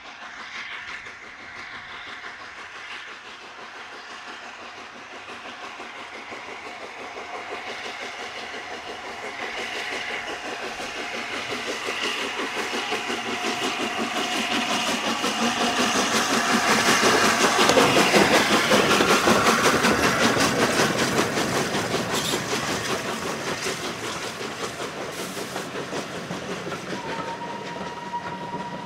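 LNER Peppercorn A1 Pacific 60163 Tornado, a three-cylinder steam locomotive, working a train: its rapid exhaust beats grow louder as it approaches, peak as it passes about two-thirds of the way in, then give way to the coaches rolling by with a clickety-clack over the rail joints.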